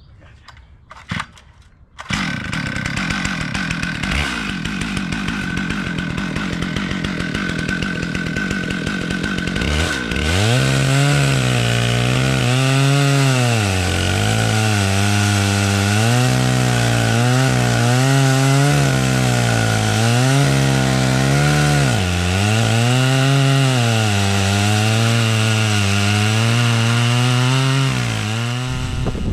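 Stihl MS 661 two-stroke chainsaw on an Alaskan chainsaw mill, ripping a log lengthwise into boards. It comes in loud about two seconds in and runs steadily. From about ten seconds in it goes to full throttle in the cut, its pitch rising and falling with the changing load, and it eases off near the end.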